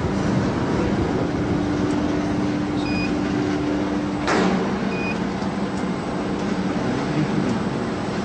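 Biomass sawdust burner firing, its blower and flame making a steady roar with a steady hum. A brief falling whoosh comes about four seconds in, and two short electronic beeps sound about three and five seconds in.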